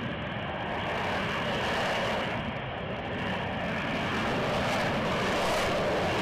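Lockheed Martin F-35B's Pratt & Whitney F135 engine and shaft-driven lift fan running in STOVL hover mode, a dense, steady jet noise that grows gradually louder as the aircraft draws nearer.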